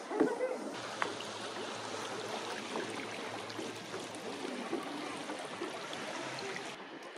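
Steady rushing noise, like moving air or water. It starts abruptly about a second in and drops away abruptly near the end.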